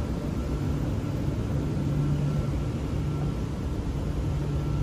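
Steady hum and hiss inside a standing Shenzhen Metro Line 20 driverless train car, its air conditioning and onboard equipment running, with a low hum and a faint high tone that comes and goes.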